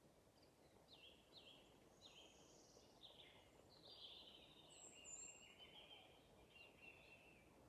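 Faint songbird calls: a run of short chirps, then a longer warbling phrase about four seconds in, over a low steady hiss.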